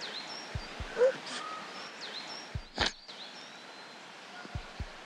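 Steady outdoor background hiss with a bird giving short, high, downward-sweeping chirps several times. Over it come a few soft sniffs and breaths from a girl crying, the sharpest about three seconds in.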